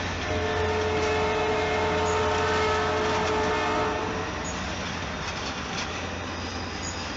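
Canadian Pacific Holiday Train's cars rolling past at speed, a steady rumble. For about the first four seconds a sustained chord of several held tones sounds over it, then stops, leaving the fading rumble of the passing cars.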